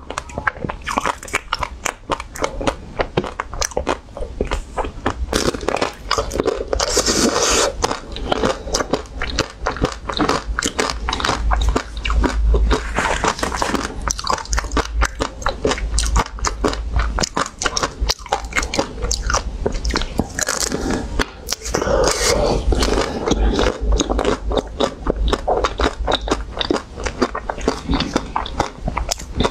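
Close-miked biting and crunching into the hard shell coating of a frozen ice cream bar, many small crackles as it breaks, with chewing between bites.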